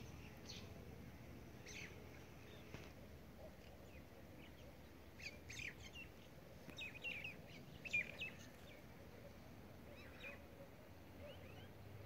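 Faint birds chirping: short, scattered calls that come in small clusters, most around the middle, over a faint steady background hiss.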